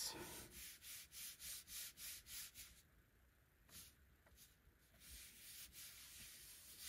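Palms rubbing the back of a paper book page pressed onto a Gelli gel printing plate, burnishing the paint into the paper to pull a print. A soft swishing comes about three to four strokes a second for the first three seconds, then turns fainter and more scattered.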